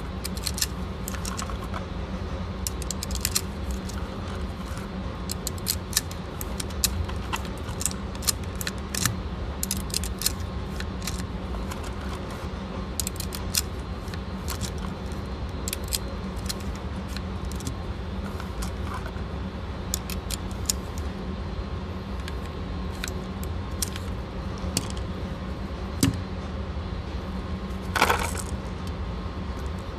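Cartridges clicking one by one into a Canik pistol magazine as it is loaded, in short metallic clicks a little over one a second over a steady low hum, with a louder metallic rattle near the end.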